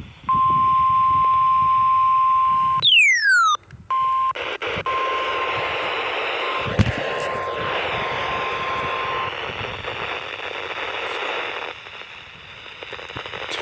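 NOAA Weather Radio warning alarm tone, the steady 1050 Hz test tone, heard from a weather radio receiver. It holds for about two and a half seconds and is broken by a quick falling whistle. It then comes back fainter for several seconds under radio static hiss.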